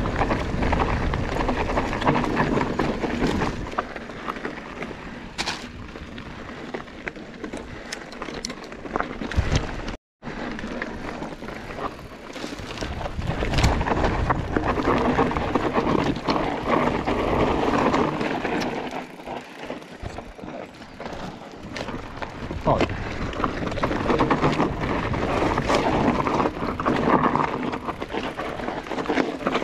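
Commencal Meta HT hardtail mountain bike ridden over a rough dirt trail: tyres rolling on gravel and earth, with frequent rattles and knocks from the bike, and wind buffeting the microphone. The sound drops out completely for a moment about ten seconds in.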